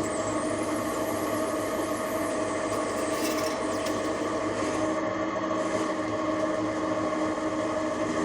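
TV-16 hobby lathe running steadily, a hum of several constant tones with a scraping noise over it, as a small part is turned. Brief higher scratchy sounds come about three seconds in.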